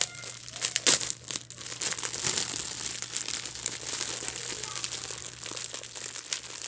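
Thin plastic bread bag crinkling and crackling as it is handled and pulled open, a continuous run of sharp crackles, loudest about a second in.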